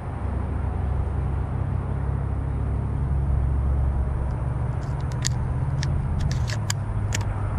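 12-gauge buckshot shells being thumbed into a semi-automatic shotgun's tube magazine: a run of sharp metallic clicks over about three seconds in the second half, over a steady low rumble.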